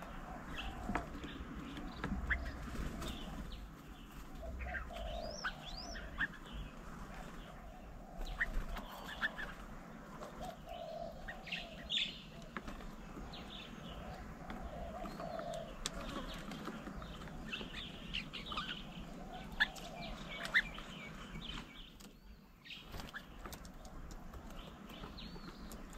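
Garden birds at a bird table chirping and calling, with short high chirps throughout and a lower call coming back every few seconds. A few short sharp sounds stand out, such as wing flaps as birds come and go.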